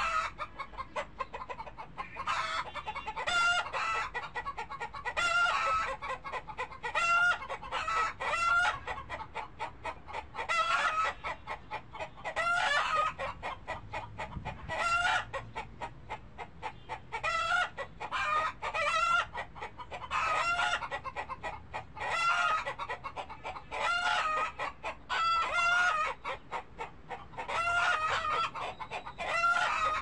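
Chickens clucking: clusters of short, warbling calls that come again every second or two.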